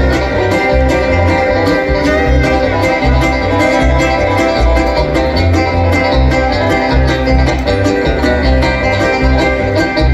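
Live bluegrass band playing an instrumental break: fast banjo and acoustic guitar picking over steady bass notes.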